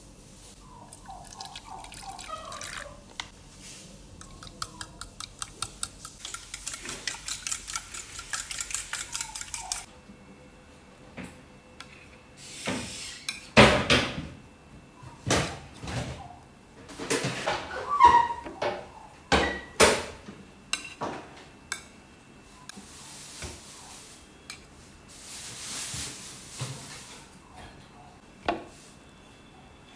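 Kitchen dishes and cutlery clinking and clattering while food is prepared. About six seconds in there is a run of rapid, even clinking, like a fork beating in a bowl. Loud knocks and clatters follow, then a stretch of running water near the end.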